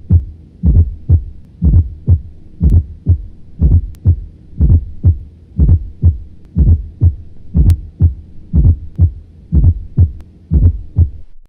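Heart sounds heard through a stethoscope: low thumps in a steady repeating pattern of about one beat a second, played as an example of a fourth heart sound (S4), the atrial gallop, which is always pathological and marks an overworked atrium.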